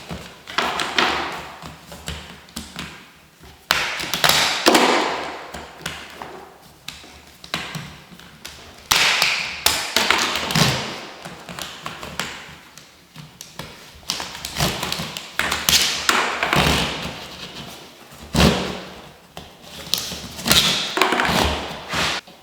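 A run of irregular taps, knocks and thuds, like things being handled, set down and struck during hand work, with louder clusters now and then.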